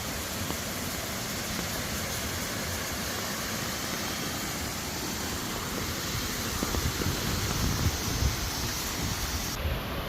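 Steady rushing of water from a small waterfall. From about six and a half seconds in, uneven low bumps are added.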